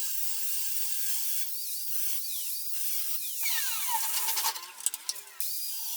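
A high-pitched power tool running in the workshop, a steady whine and hiss. About three and a half seconds in its pitch glides down and the sound turns uneven for a moment before steadying again.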